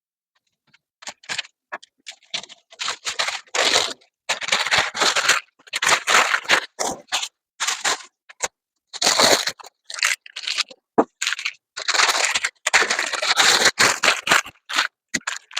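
Masking tape and paper being peeled off a truck's freshly painted body and crumpled, in irregular bursts of tearing and crinkling.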